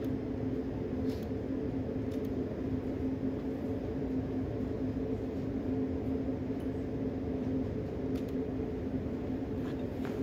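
A steady low hum with two constant pitches, holding level throughout, with a few faint ticks over it.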